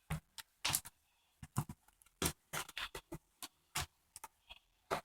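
Packaging being handled: a string of short, irregular taps, clicks and rustles, about three a second.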